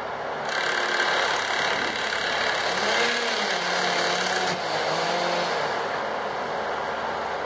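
Mobile crane's engine running under load, its pitch rising and falling a few times. The sound fades in at the start, and a hiss on top of it drops away about halfway through.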